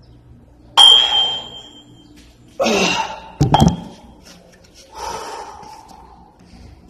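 Iron-plate dumbbells clanking: a sharp metal clink with a ringing ping about a second in, then a heavy thud as they are set down on the floor about three and a half seconds in, and a softer knock about five seconds in.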